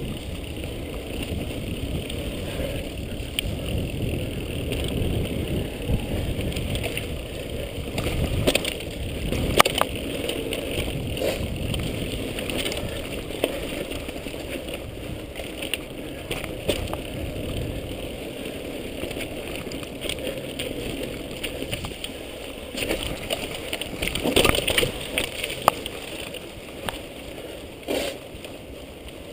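Mountain bike ridden fast down a dirt forest trail: tyres rumbling over the ground with wind on the microphone, and scattered clicks and rattles from the bike as it goes over bumps.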